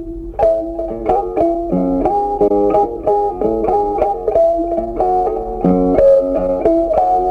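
Background music: a melody of quickly picked plucked-string notes.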